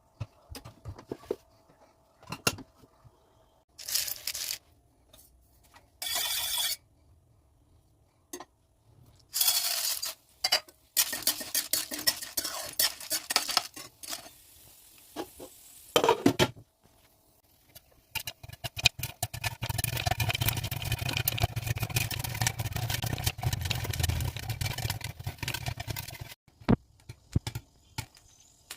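Popcorn being made in a pan: clinks, knocks and scrapes of cookware, then long runs of dense crackling and rattling in the pan, the later run with a low hum underneath.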